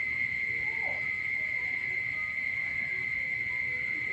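Steady, unbroken high-pitched night chorus of small frogs and insects calling after rain. A brief falling call stands out faintly about a second in.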